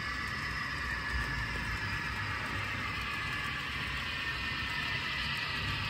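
Model train running on the layout's track: a steady whir from the locomotive and its cars rolling on the rails, over a low hum.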